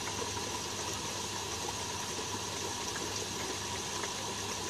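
Steady low mechanical hum with a faint high hiss over it and a few light ticks.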